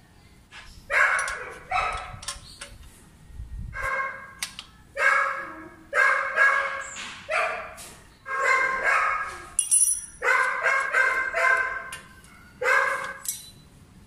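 A dog barking repeatedly, in short irregular runs of loud barks.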